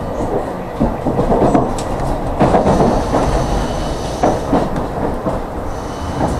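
Tram running along its track, heard from on board: a steady low rumble with irregular wheel knocks. It grows louder in the middle as another tram passes close by in the opposite direction.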